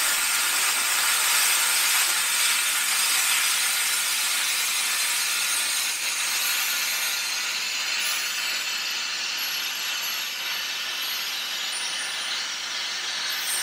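Cutmaster 40 plasma cutter with a drag tip cutting thin metal: a steady hiss of the arc and air jet that holds with little change.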